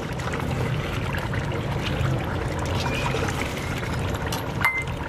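Beef frying in thick masala gravy in a large aluminium pot, sizzling and bubbling as a long metal slotted spoon stirs through it, with scrapes of the spoon and a sharper clink against the pot near the end.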